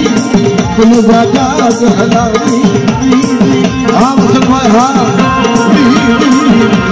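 Loud amplified Indian folk music: a steady hand-drum rhythm under a wavering, ornamented melody line.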